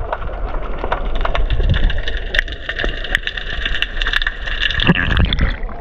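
Muffled underwater noise picked up by a camera held just below the sea surface: a low rumble with scattered sharp clicks and crackles. About two seconds in, a steady high whine joins and runs until shortly before the end, when it cuts off.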